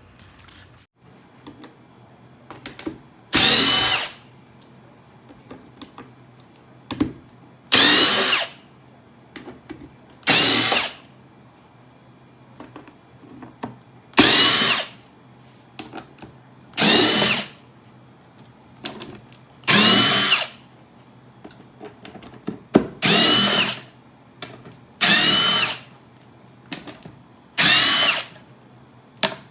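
Power drill running in nine short bursts, each about a second of motor whine that rises and falls, with pauses of a few seconds between: screws being driven out of a wooden shipping box one at a time.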